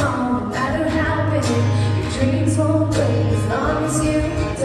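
Music: a woman singing to guitar accompaniment, with a steady low bass underneath.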